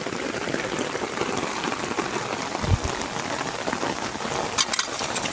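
Steady heavy rain falling and hitting nearby surfaces. There is one dull thump about two and a half seconds in, and a few sharp clicks near the end.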